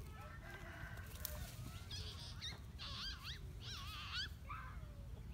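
A run of wavering, warbling high-pitched animal calls, several in quick succession from about two seconds in until a little past four seconds.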